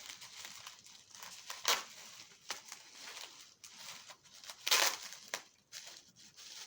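Packing material crinkling and rustling as it is handled and unwrapped, with two louder crinkles, one about two seconds in and the loudest near five seconds.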